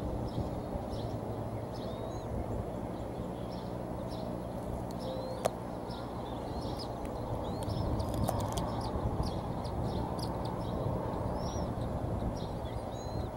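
Short, high bird chirps repeating about every second over a steady low rumble on the nest microphone, with one sharp click about halfway through.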